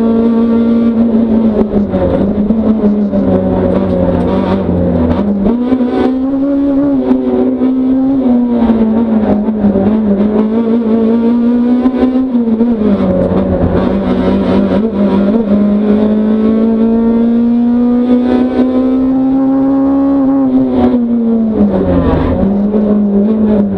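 Racing car's engine heard from inside the cabin, driven hard: its note climbs under acceleration and drops sharply at gear changes, rising and falling repeatedly as the car brakes for corners and accelerates out of them.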